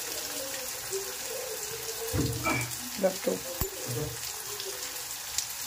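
Garlic, onion and green chillies frying in oil in a pan: a steady sizzle with fine crackling. A few knocks and a sharp click of a utensil against the pan come in the middle.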